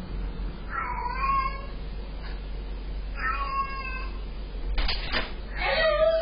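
Sphynx cat meowing three times, each a drawn-out call that slides down in pitch. A brief clatter comes just before the last meow.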